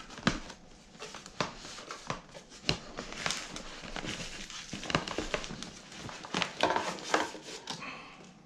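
Packaging being handled: irregular rustling with scattered clicks and taps.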